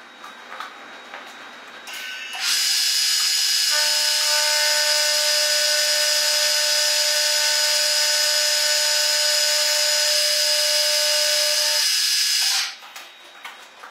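Vertical milling machine with an end mill cutting a flat on a quarter-inch 4140 alloy steel rod: a loud steady hiss with a steady whine, starting about two and a half seconds in and stopping abruptly about a second before the end.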